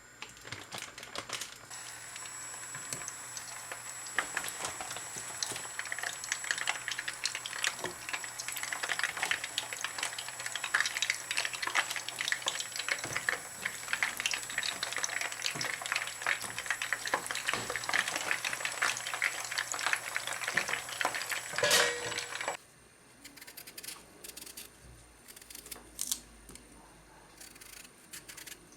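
Food sizzling and crackling in a hot frying pan. The sizzle stops abruptly about three-quarters of the way through, leaving a few quieter clicks and knocks.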